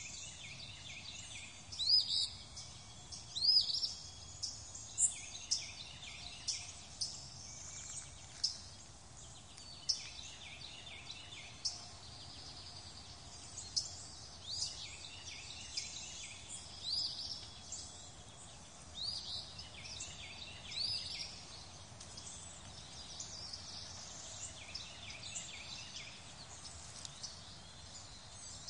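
Birds chirping and singing in short, sharp, rising phrases every second or so, over a faint steady hiss of outdoor ambience.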